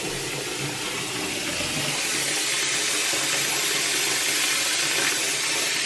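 Water running steadily from a hand-held shower head into a partly filled bathtub as it fills.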